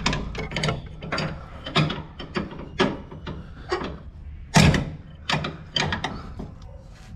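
Hand tool working on a Renault Sandero's front stabilizer link to force it out: a run of sharp, irregular metallic clicks and knocks, a few a second, with one louder knock about four and a half seconds in.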